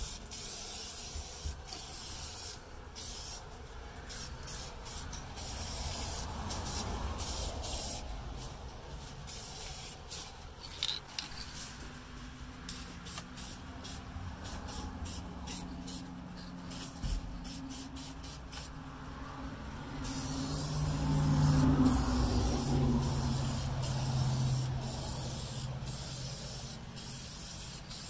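Aerosol can of Dupli-Color vinyl and fabric spray paint hissing in short, repeated bursts as it is sprayed onto car carpet. A low droning hum comes up in the background in the second half, loudest about three-quarters through.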